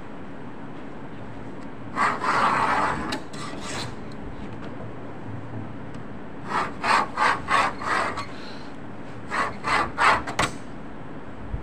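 Hand knife cutting sheet material along a paper pattern on a cutting table: a longer scraping cut about two seconds in, then quick runs of short cutting strokes, about five near the middle and four more near the end, over a steady room hum.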